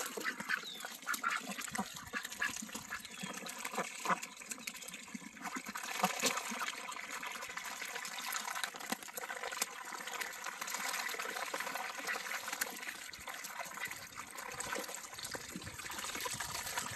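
A crowd of domestic ducks dabbling in a bowl of wet feed: a continuous wet slurping and bill-clattering, dense with small clicks and splashes as many bills work the food at once.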